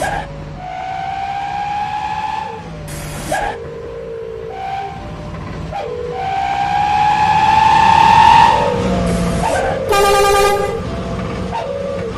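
Truck's Basuri 'telolet' multi-tone horn sounding a string of long notes, several gliding slightly upward in pitch. Short sharp blasts come in between, with engine rumble underneath.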